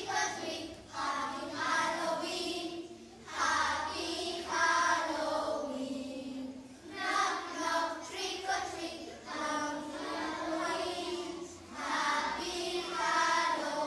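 A group of young children singing a song together in unison, in phrases with short breaks between lines.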